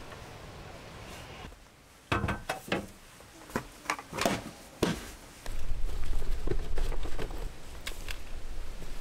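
A series of sharp clicks and knocks from gear being handled, some ringing briefly, then from about halfway a loud, uneven low rumble of wind on the microphone.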